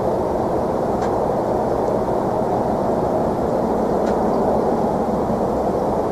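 A steady low rumbling drone with no break or rhythm: the unexplained 'strange sound' heard over the area at night. A few faint ticks sound over it.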